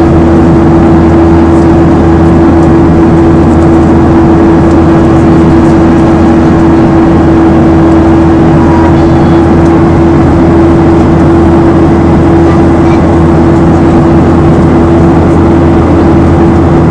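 Loud, steady cabin noise of a Boeing 737-800 in flight, heard from a seat beside the wing: the CFM56-7 turbofan and the rushing airflow make an unbroken drone with a strong even hum.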